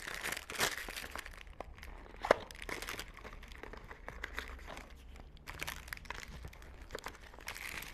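Small cardboard box being opened by hand: crinkling and rustling of the carton and the paper leaflets inside, with one sharp click about two seconds in.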